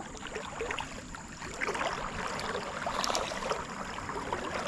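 Running stream water gurgling and splashing, with many small irregular splashes.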